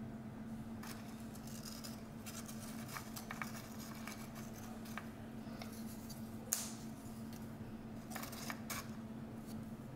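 Dry crackers being handled and set down on a wooden board: light scattered taps and rustles, with one sharper click about six and a half seconds in, over a steady low hum.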